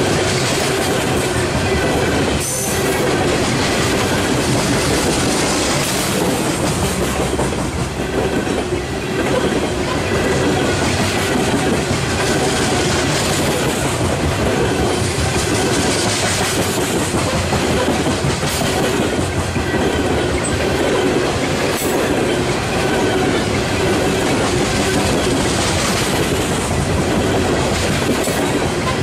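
Coal train's bathtub gondola cars rolling past, their steel wheels making a steady rumble on the rails. A clickety-clack comes every few seconds as wheel sets cross rail joints.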